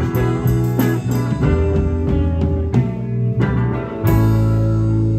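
Live band playing electric guitar and bass guitar, a run of picked notes that settles into a held chord about four seconds in.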